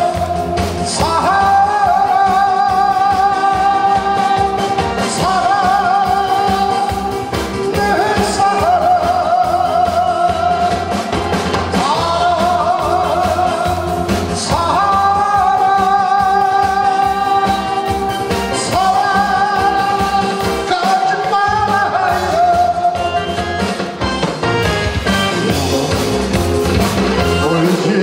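A man singing into a microphone over a backing track, with long held notes that waver in vibrato and phrases every few seconds.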